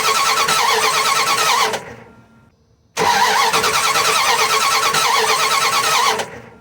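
Dodge truck V6/V8 gas engine cranked over by its starter in two bursts of about three seconds each, turning over evenly without ever firing: a crank-no-start with no spark at the plug wire.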